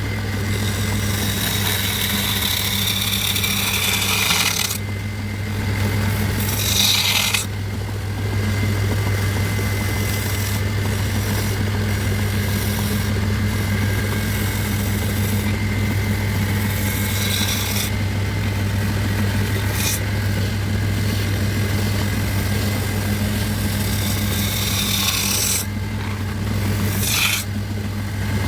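Electric power tool's motor humming steadily while it rasps and scrapes at wood, with the scraping easing off briefly twice.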